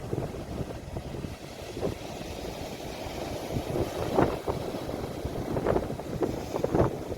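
Ocean waves recorded on a phone: a steady low rumble of surf with a few brief, louder splashes in the second half.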